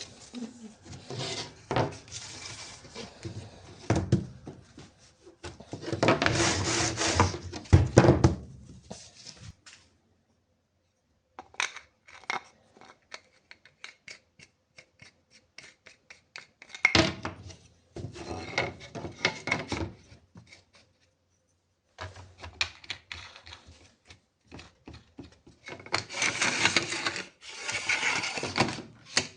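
Hand work on wood in the workshop: rubbing and scraping strokes in several bursts, the loudest a few seconds in. The sound cuts to dead silence twice along the way.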